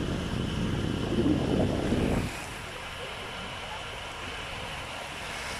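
Wind buffeting the microphone in a low rumble for about two seconds, stopping abruptly, then the steady wash of calm sea and beach background.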